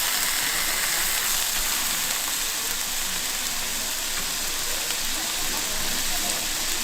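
Thick skirt steak sizzling steadily as it cooks.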